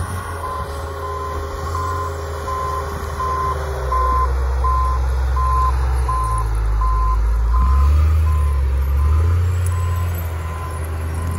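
CAT 938G wheel loader's backup alarm beeping steadily, about three beeps every two seconds, as the loader reverses, over the low rumble of its diesel engine. The engine grows louder about 4 s in and again about 8 s in.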